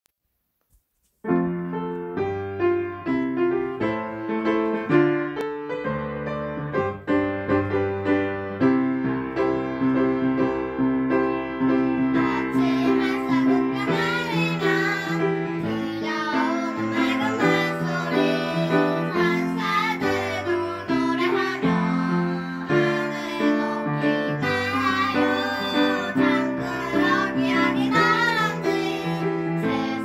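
Upright piano playing, starting about a second in; from about twelve seconds in two girls sing a soprano-and-alto duet over the piano accompaniment.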